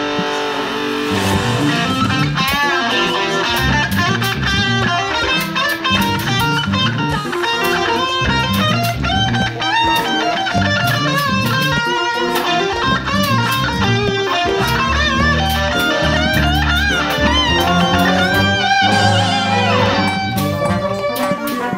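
Ibanez electric guitar played through an amp, a busy line of quick notes in a piece of music, with lower parts sounding beneath it.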